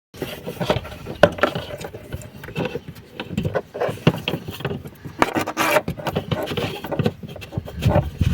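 Irregular knocks, clicks and scrapes of hands handling parts and tools, with no engine or pump running.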